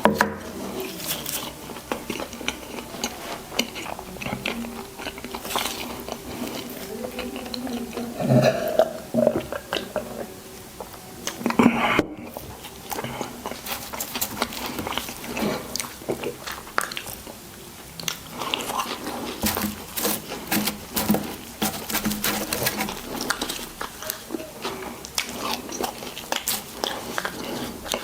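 Close-miked chewing of a burger and fries, with irregular crunchy bites and mouth clicks.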